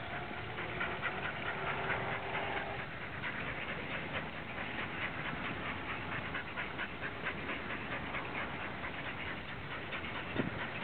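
Two dogs running on leads beside a mountain bike on a street: a quick, irregular patter of clicks from paws and bike. A faint steady hum fades out about three seconds in.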